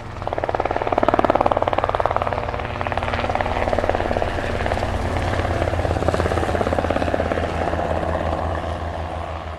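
Helicopter rotor beating fast and steadily, with a low engine hum underneath. It fades in at the start and begins to fade away near the end.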